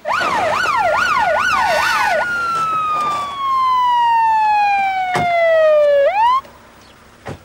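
Police car siren: a rapid rising-and-falling yelp for about two seconds, then a slow falling wail that swoops back up briefly before cutting off.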